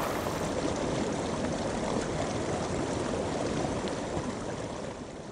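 Creek water running over rocks, a steady rushing that fades out near the end.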